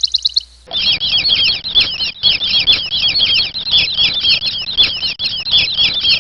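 Birds calling: a very fast high trill stops abruptly about half a second in. Then comes a dense run of quick, high chirps, each sweeping downward, repeated several times a second.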